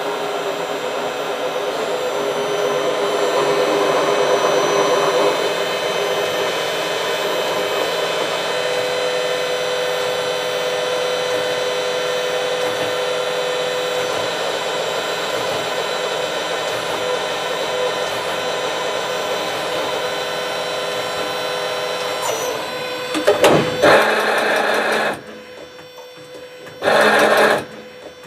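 Fanuc Alpha-T14iA Robodrill CNC drilling and tapping center running a program: a steady mechanical drone with several high, held whining tones. Near the end the running drops away, broken by three short, loud bursts of noise.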